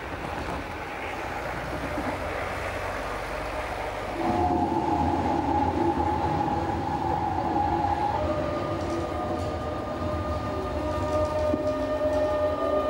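Metre-gauge GFM electric train running: a steady rumble as the railcar approaches, then from about four seconds in a louder on-board ride with steady whining tones that step up in pitch about eight seconds in.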